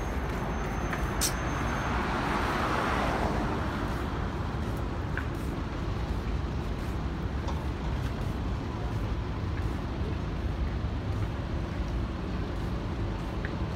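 Road traffic on a busy multi-lane street: a steady rumble of passing cars, with a louder hiss swelling from about one to three seconds in and a single sharp click near its start.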